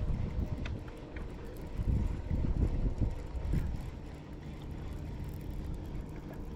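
Wind buffeting the microphone on a fishing boat in uneven low gusts, over a faint steady hum.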